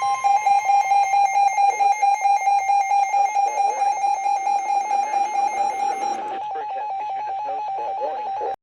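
Weather radio receiver's alert alarm beeping in rapid pulses, a buzzy electronic tone, after a warning has been issued. It turns steadier about six seconds in and then cuts off abruptly.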